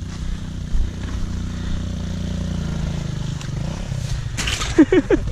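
Trail motorcycle engine running steadily as the bike struggles up a muddy slope on standard road-pattern tyres with too little grip. A short vocal outburst near the end.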